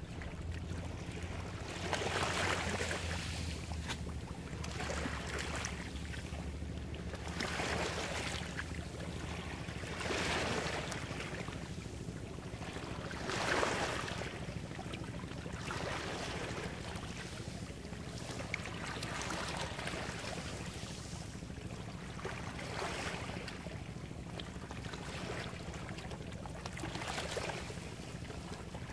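Small waves washing on the beach: a hiss that swells and fades every two to three seconds, over a low steady hum.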